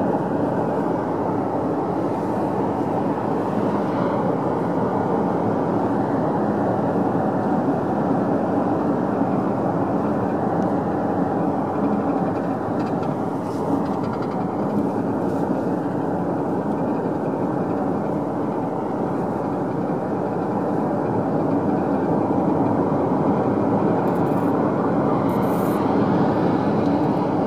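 Steady road noise of a car cruising at highway speed, heard from inside the cabin: tyres rolling on asphalt with engine and wind hum.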